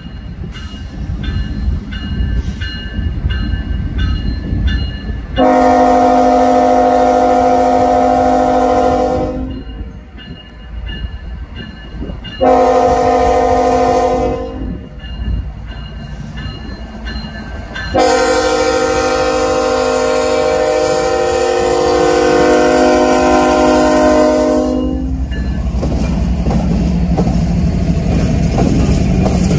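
Freight locomotive's multi-chime air horn sounding three blasts: a long one about five seconds in, a short one about twelve seconds in, and a long one from about eighteen to twenty-five seconds, over the rumble of a passing train. The locomotive's diesel engine noise grows louder near the end.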